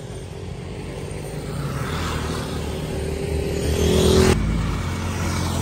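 Motor vehicle running on the road, with a low rumble and tyre hiss that build up to a peak about four seconds in, then change abruptly.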